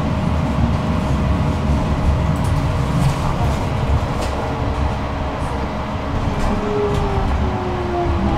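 Tram running on its rails: a steady deep rumble of wheels with a thin steady tone and faint clicks, and a faint whine that slides down in pitch near the end.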